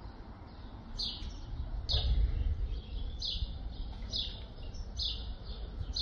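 A small bird chirping over and over, short high chirps roughly once a second, over a steady low rumble that swells briefly about two seconds in.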